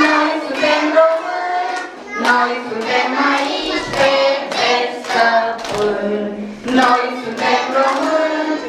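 Group of young children singing a song in Romanian, with hands clapping along in time, about two or three claps a second.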